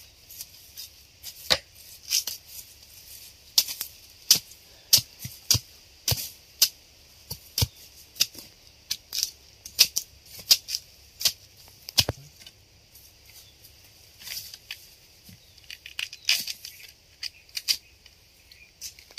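Machete blade chopping into fresh bamboo shoots and their husk sheaths being split and torn off by hand: a run of irregular sharp cracks and crisp tearing snaps.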